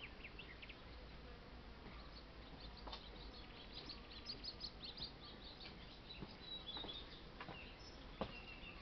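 Faint, irregular chirping of small birds, thickest in the middle, with a single sharp click near the end.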